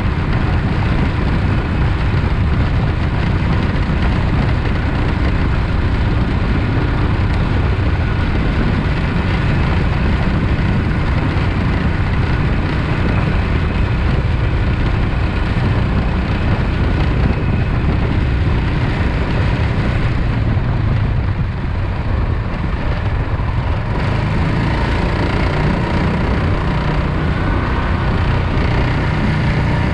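Predator 420cc 13 hp single-cylinder four-stroke engine on a longtail mud motor running steadily under way, with a brief drop in level about two-thirds of the way through.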